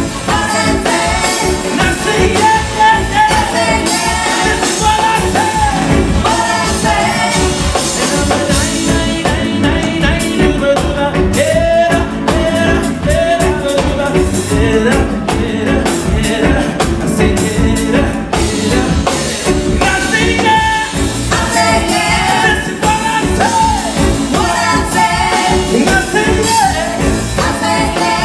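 Live reggae band playing, with a singer over drums, bass, guitar and keyboard.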